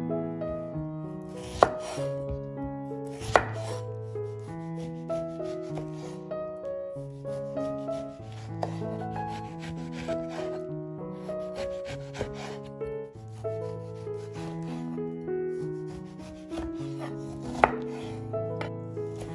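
Knife work on a lemon on a wooden cutting board: a few sharp knocks on the board, two in the first few seconds and one near the end, with quieter cutting and scraping as the peel is pared off. Throughout, background music of sustained notes changing steadily.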